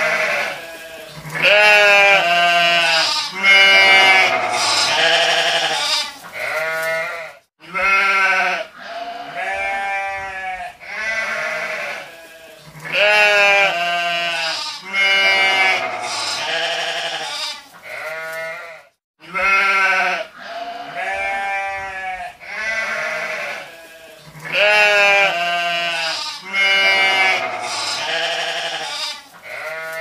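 A flock of sheep bleating, many calls overlapping one another, broken twice by a brief silence.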